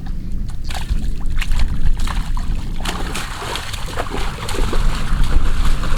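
Water splashing and sloshing in irregular splats, over a steady low rumble of wind on the microphone.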